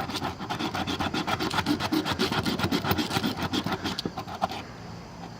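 Cheap ferrocerium rod scraped hard and fast with the spine of a multitool blade to throw sparks, many quick rasping strokes a second that stop about four and a half seconds in. The spine is not very sharp.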